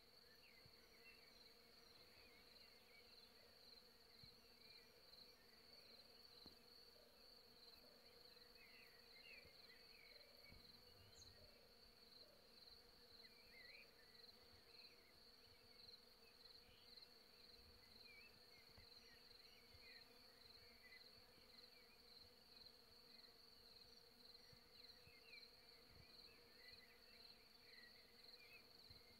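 Faint, steady hum of honeybees foraging in a flowering field maple canopy, with a steady high-pitched whine and scattered faint chirps over it.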